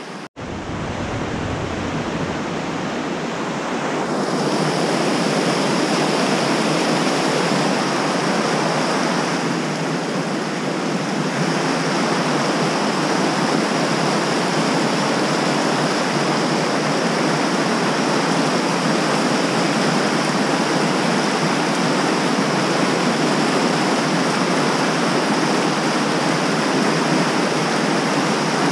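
Rushing mountain-creek water: a steady, loud wash of flowing water that grows louder about four seconds in.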